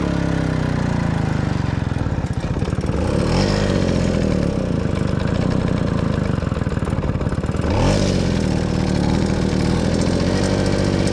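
Tomos A3 moped's small two-stroke engine running on the road. Its speed sags during the first couple of seconds, then picks up again about three seconds in and once more near eight seconds. The rider hopes the trouble is only fuel.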